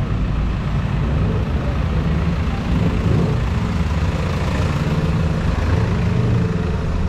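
Steady low rumble of street traffic and vehicle engines.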